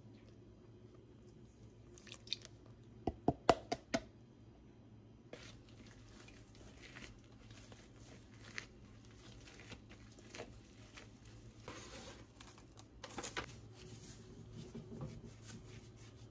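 Rye bread dough being made by hand: a quick run of sharp clicks or knocks about three seconds in, then soft squishing, pressing and small taps as gloved hands knead and handle the dough.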